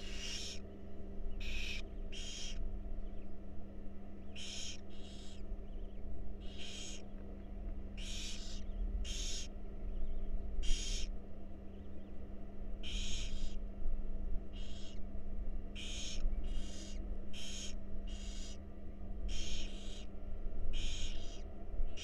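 Barn owls in a nest box giving short hissing calls, irregularly every second or two and often in pairs, as the adult feeds its downy nestlings. A steady low hum runs underneath.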